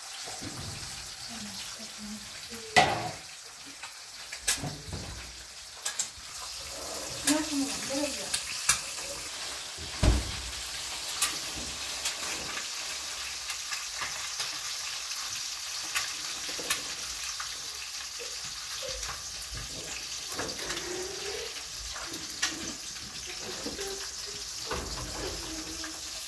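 Eggs frying in oil in a pan, a steady sizzle throughout. Now and then there are sharp knocks and clatters of kitchen utensils, the loudest about three seconds in and another about ten seconds in.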